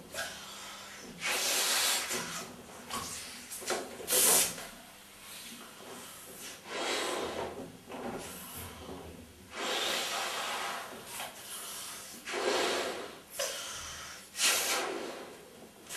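A woman blowing up a balloon by mouth: a run of repeated breaths, sharp breaths drawn in and longer puffs blown into the balloon, one every two to three seconds.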